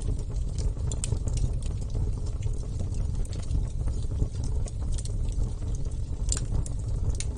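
Wood fire burning: a steady low rumble of flames with scattered sharp crackles and pops, two louder pops near the end.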